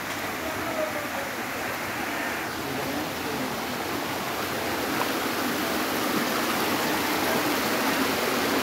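Hill stream rushing over rocks in a steady rush, growing a little louder near the end.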